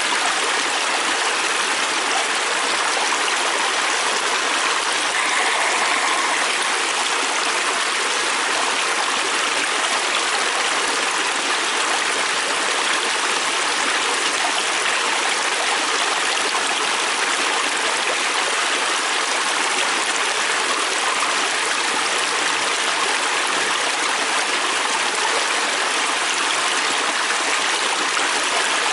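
Fast-flowing river stream rushing and splashing in a steady, even wash.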